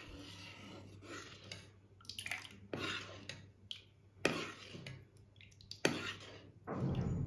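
Steel spoon stirring thickened milk in a kadai, with irregular clinks and scrapes of the spoon against the pan and milk dripping and splashing back off the lifted spoon.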